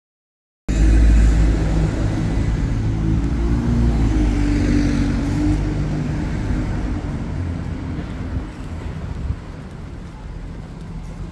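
Street traffic: vehicle engines giving a heavy low rumble. It starts abruptly about a second in and slowly dies down.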